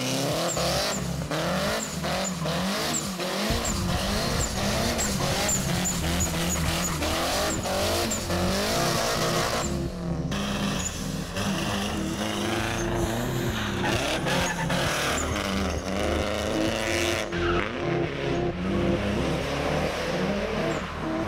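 Drift car sliding: the engine revs up and down, held high, while the tyres squeal and skid across the asphalt.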